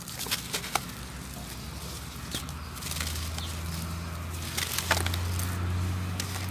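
Lumps of dry cement-sand mix crumbled by gloved hands over a pan of water: gritty crunching with sharp cracks as the lumps break, a few just after the start and more about five seconds in. A low steady hum sits underneath from about three seconds in.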